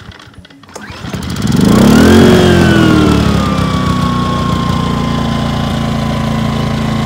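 Westinghouse iGen2500 inverter generator's small four-stroke engine starting about a second in, revving up, then dropping back and settling into a steady run.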